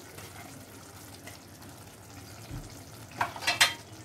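Curry gravy simmering in a frying pan, a steady faint bubbling sizzle. About three seconds in, a brief clatter of kitchen utensils.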